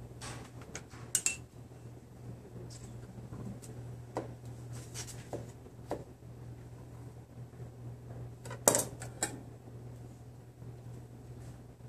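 Scattered clinks and taps of kitchen utensils against plates and a stainless steel bowl while a dessert is plated, the loudest cluster of clinks about three-quarters of the way in. A steady low hum runs underneath.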